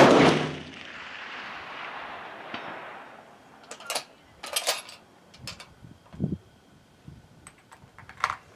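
.308 Winchester Savage 10FP-LE bolt-action rifle fired once at the very start, the report echoing and dying away over about three seconds. A few sharp metallic clicks follow about four seconds in and again near the end, typical of the bolt being worked.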